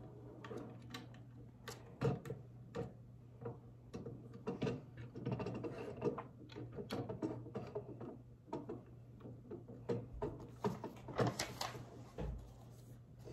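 Plastic Lego pieces being handled and sorted: irregular small clicks, taps and rattles, busiest in the middle and again near the end, over a steady low hum.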